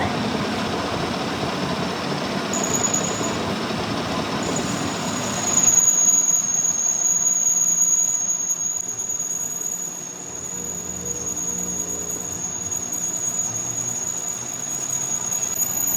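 Metalworking machine running on metal with a steady high-pitched squeal. A noisy rush underneath falls away about six seconds in.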